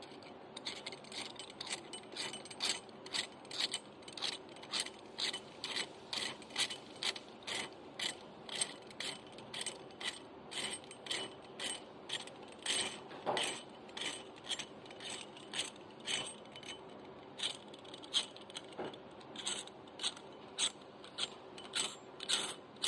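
Brass kitchen-faucet mounting nut clicking as it is turned by hand on its threaded body, an even ratchet-like click about twice a second.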